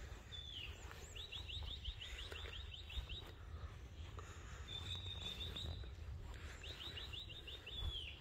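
A small songbird singing: a fast trill of about ten short, high, down-sweeping notes a second, starting about a second in and again near the end, with a held high note between and a short down-slurred call near the start and the end. A low rumble runs underneath.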